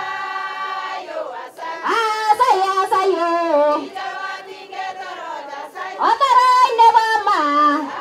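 A choir singing, with long held notes that step and slide from one pitch to the next.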